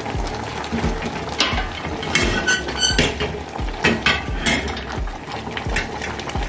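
Wooden spoon stirring in a large stainless steel stockpot and knocking against its side: a run of irregular knocks and clinks, some with a short metallic ring.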